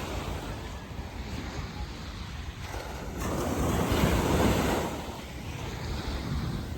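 Sea waves washing onto a sandy beach, one wave swelling up and breaking about three seconds in, then easing off. Wind rumbles on the microphone throughout.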